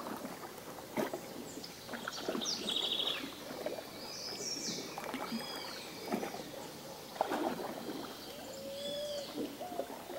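Several birds chirping and whistling, with a quick trill a few seconds in and whistled notes near the end, over the irregular splash and knock of oars from a rowboat on the water.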